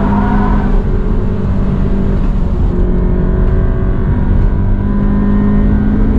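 Engine of an automatic Toyota 86 (2.0-litre flat-four) running hard at track speed, heard from inside the cabin. Its note climbs in the first second, then holds fairly steady, dipping slightly about three seconds in.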